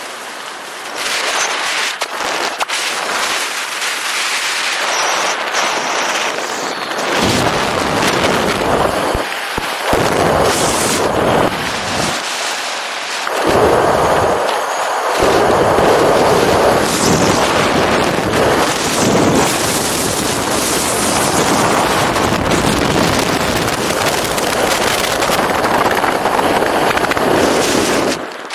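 Airflow buffeting the camera's microphone during a parachute flight: a loud, gusty rush with heavy low rumbling that comes and goes, cutting off sharply near the end as the skydiver reaches the ground.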